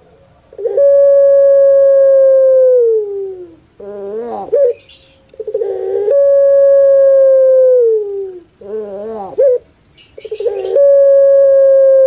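Caged ringneck dove (puter pelung, Streptopelia risoria) cooing over and over: each call is a short rolling, quavering note followed by a long drawn-out held coo that slides down in pitch at its end. Three long coos come about five seconds apart.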